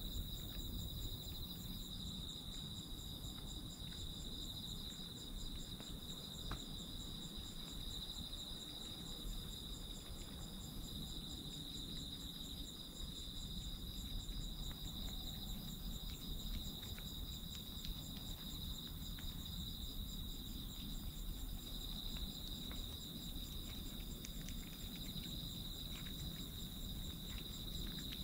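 Crickets chirring steadily: a continuous high trill with a fainter, evenly pulsing trill above it, over a low rumble. Faint soft ticks come from a kitten licking and chewing food off the pavement.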